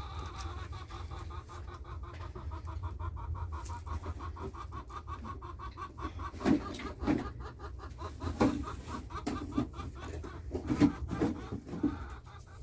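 Chickens clucking: a fast, even run of short clucks, then several louder single clucks in the second half, over a low steady rumble.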